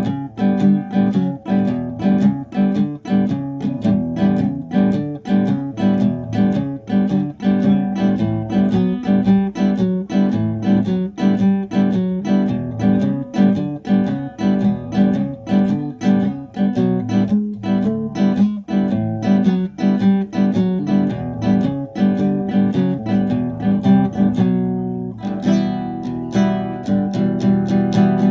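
Custom cutaway nylon-string classical guitar with a cypress body, played fingerstyle: a fast, continuous flow of plucked notes and strummed chords, broken by a short pause near the end.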